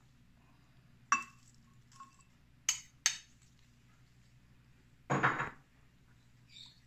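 Kitchen utensils and dishes clinking: a sharp clink with a brief ring about a second in, a lighter one, then two quick clinks. A louder half-second scrape follows just after five seconds.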